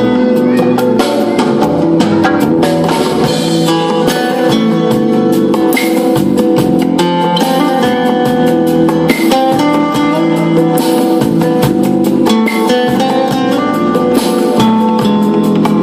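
A live cover song played with strummed guitar, a steady stream of loud music with pitched guitar chords and regular strokes.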